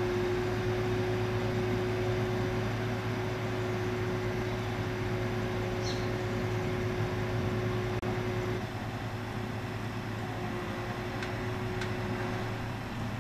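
Truck-mounted tree-felling crane's engine and hydraulics running steadily: a low hum with a higher steady whine that drops away about two-thirds of the way through. There are a few faint clicks.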